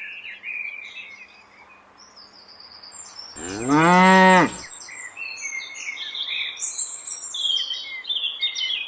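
A cow moos once, a loud call of about a second about three and a half seconds in, over birds chirping.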